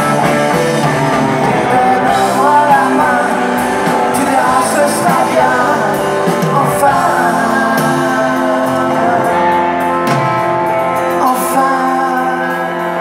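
Live rock band playing, with electric guitars, drums and a voice singing, heard from the audience in a large hall.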